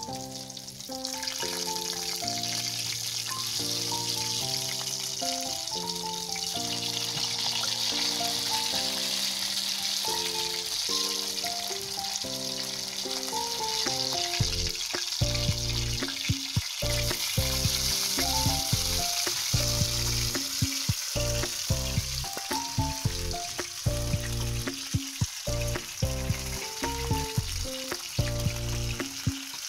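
Masala-coated seer fish slices shallow-frying in hot oil, sizzling steadily, the sizzle swelling about a second in as the pieces are turned over. Background music with a melody runs throughout, joined about halfway by a heavy beat.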